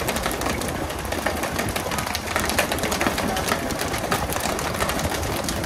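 Boat engine running steadily, with a rapid, irregular clatter of sharp clicks over it.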